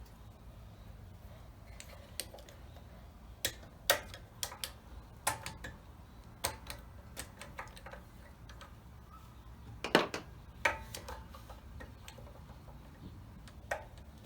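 Irregular clicks and light knocks of a flathead screwdriver and hands working hoses and parts off a small engine's carburetor, over a faint steady low hum.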